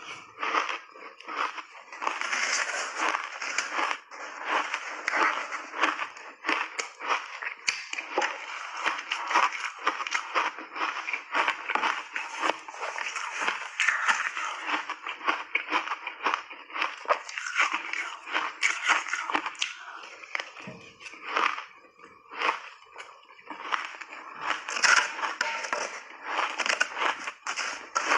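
Close-up crunching of shaved ice dusted with matcha powder and milk cream being chewed in big bites: a dense, continuous crackle of sharp crunches.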